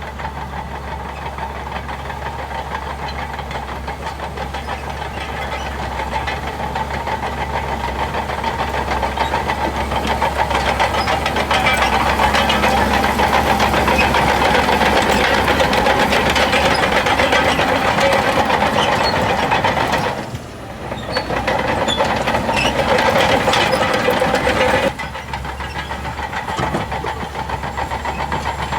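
Shantui DH17C2 bulldozer's diesel engine running as it works, growing louder over the first dozen seconds. It dips briefly about two-thirds of the way in and drops suddenly in level near the end.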